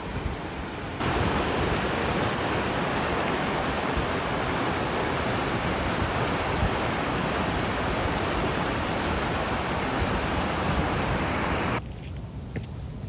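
Waterfall's rushing water, a loud steady noise with no rhythm. It jumps louder about a second in and cuts off abruptly near the end.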